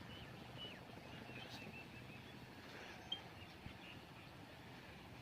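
Faint bird chirps: short high calls scattered through, over a low steady background hum.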